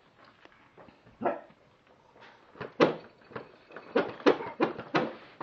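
Baby twins making a run of short vocal noises, sparse at first and coming quickly and louder from about halfway in.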